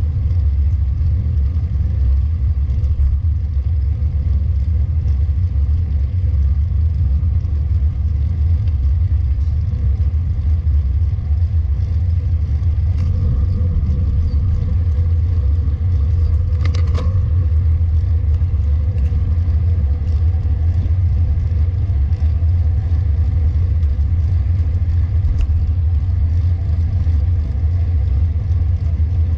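Steady low wind rumble on the microphone of a camera riding along on a road bike in motion, with one short sharp clank about seventeen seconds in.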